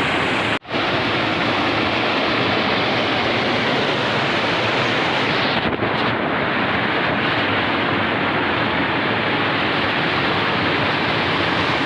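Steady rushing of river water, a loud even hiss that breaks off for an instant about half a second in and turns duller about halfway through.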